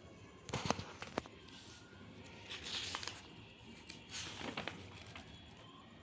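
A few faint sharp clicks, then two short rustles: handling noise.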